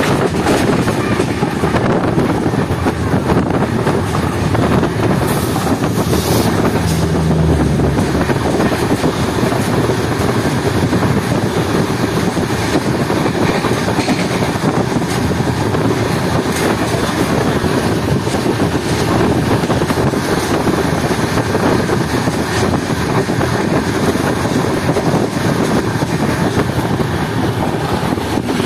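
Steady, loud rush of an Indian Railways express running at speed, heard from inside a coach through a barred window: wheels on the rails and wind, with another express's LHB coaches passing close alongside on the next track. A brief low steady tone sounds about seven seconds in.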